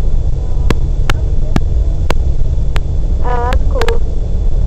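Wind buffeting the microphone: a loud, steady low rumble, with scattered sharp clicks.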